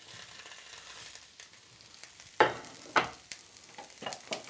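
Pre-cooked potato pieces frying in hot rapeseed oil in a pan, a soft steady sizzle. A couple of sharp knocks come past the middle, followed by a few lighter clicks.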